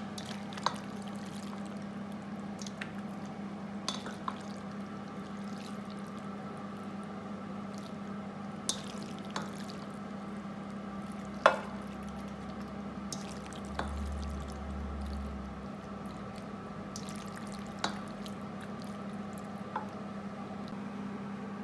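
Wet sauced macaroni being spooned from a stainless steel pot into a glass baking dish with a plastic spoon: scattered soft clicks and taps of the spoon on the pot rim and glass, with one sharper knock about halfway through. A steady low hum runs underneath.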